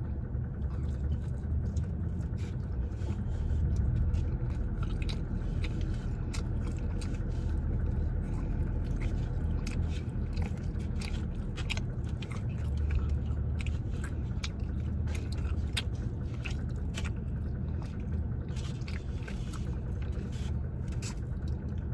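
A person chewing and biting food close to the microphone, with irregular wet mouth clicks and small crunches. A steady low rumble of a car interior runs underneath.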